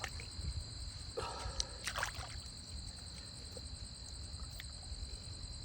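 Crickets chirping steadily in a high, even trill. A brief patch of handling noise and a few knocks come about one to two seconds in.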